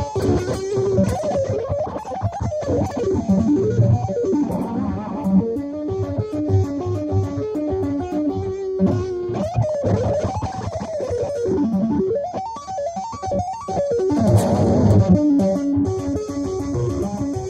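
Electric guitar played in a fast shred style: rapid runs of notes sweeping up and down in pitch, played with two-handed tapping on the fretboard.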